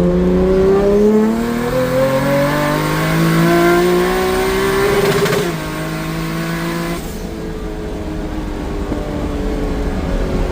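Turbocharged Toyota 2JZ straight-six accelerating under boost, its pitch climbing for about five seconds. The rise is broken by a sudden change about five seconds in, and the engine carries on at a lower pitch. A rushing intake and turbo noise over the engine cuts off about seven seconds in as the pull ends.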